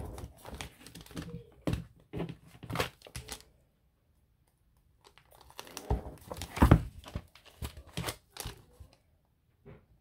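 Stiff paper and card crinkling and rustling, with short sharp clicks, as a layered book cover and its template are handled and pierced with an awl. There are two spells of it, the second louder, with a short quiet gap between them.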